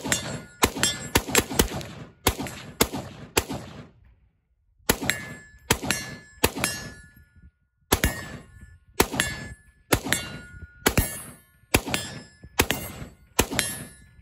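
AR-15 rifle fired semi-automatically in a long string, about two shots a second with two short breaks. Some shots are followed by a thin metallic ring from a steel target being hit.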